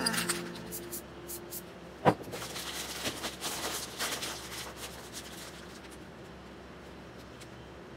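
Handling noise from spray-painting work: a sharp click about two seconds in, then a couple of seconds of rustling and scraping of paper against the painted board, settling to faint room hiss.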